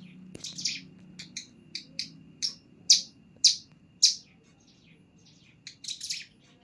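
Songbird (cigun) giving a run of loud, sharp chirps about twice a second, loudest in the middle, then a quick cluster of notes near the end: a young bird still learning its full song. A faint steady high tone and a low hum run underneath.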